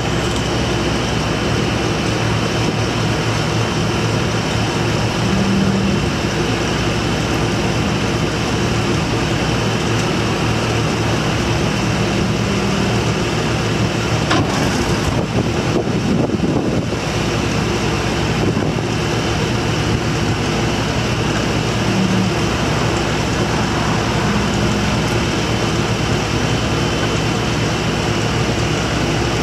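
IHI 35J mini excavator's diesel engine running steadily while the boom, arm and bucket are worked hydraulically, with a few brief louder tones as the hydraulics take load.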